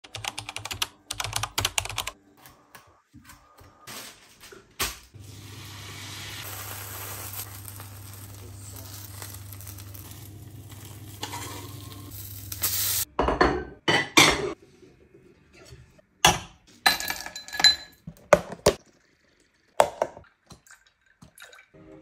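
Kitchen cooking sounds: a utensil clattering and scraping in a frying pan, with dishes and cutlery clinking. A steady low hum runs through the middle, and sharp knocks and clinks come in the second half.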